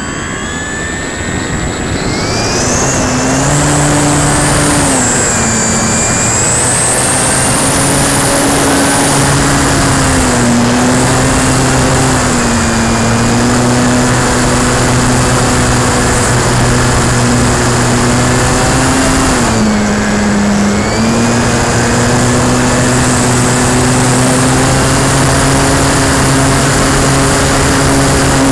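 Electric motor and propeller of a Durafly Tundra RC plane heard from on board, spooling up over the first couple of seconds for takeoff, then running steadily at high throttle with a high-pitched whine over a constant rush of air. About two-thirds of the way through, the pitch dips briefly as the throttle is eased, then comes back up.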